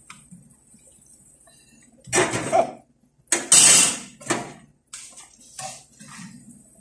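A metal frying pan and utensils clattering and scraping on a gas stove's grate in a run of sudden knocks and scrapes, the loudest a little past the middle, over the faint sizzle of dough deep-frying in oil.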